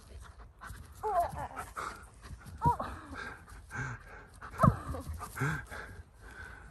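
Alaskan malamute vocalizing in play: several short yips and whines that rise and fall in pitch.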